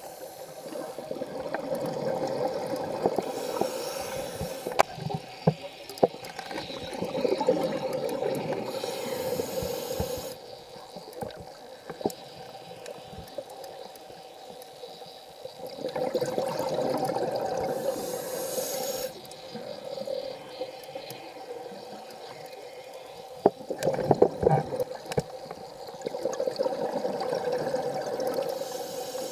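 Scuba diver's regulator breathing heard underwater: exhaled bubbles gurgling in three long bursts, with a hiss of inhaling, over a steady hum.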